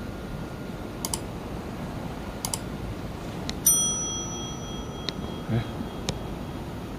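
Sound effects of a subscribe-button animation: a few mouse clicks about a second apart, then a bright notification-bell ding about halfway through that rings on for a couple of seconds, over a steady background hiss.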